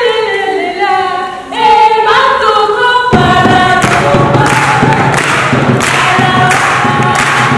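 A group of women's voices singing together unaccompanied, then drums of Afro-Venezuelan tambor music come in about three seconds in and beat a steady rhythm under the singing.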